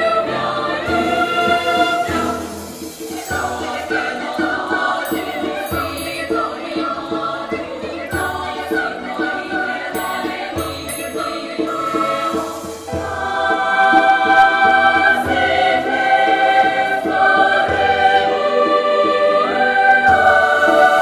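Girls' choir singing sustained chords in close harmony, swelling louder about thirteen seconds in, with the upper voices stepping up in pitch near the end.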